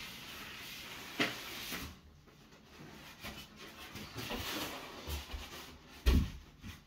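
A large foam packing insert scrapes and rubs against cardboard as it is lifted out of a big box, with handling scuffs and clicks and one loud thump about six seconds in.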